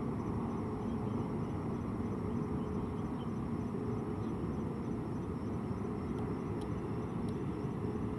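A steady low outdoor rumble with a faint hiss above it, holding at an even level throughout.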